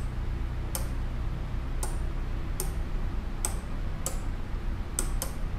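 Relays on an Arduino-driven 4-channel relay module clicking as they switch, about seven sharp clicks roughly a second apart, the last two close together, over a low steady hum.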